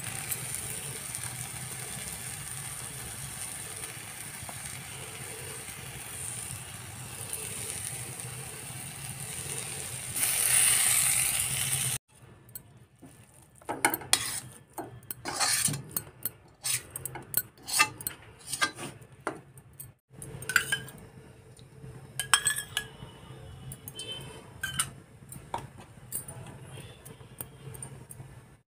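Spiced onion masala sizzling in a black iron kadhai for about the first twelve seconds, then a metal spatula stirring and scraping it, with many sharp clinks against the pan.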